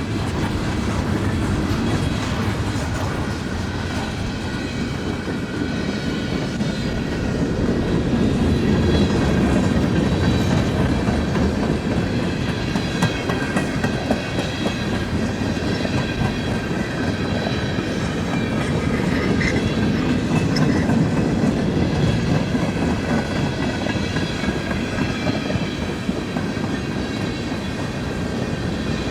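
Freight train cars rolling past, their wheels clattering in a steady clickety-clack over the rail joints, with a continuous low rumble. Faint high steady tones sound from the wheels on the rails.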